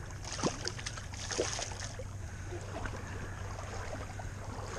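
Hooked striped bass splashing and thrashing at the water's surface as it is reeled in close to the bank, with several sharp splashes in the first second and a half. A steady low hum runs underneath.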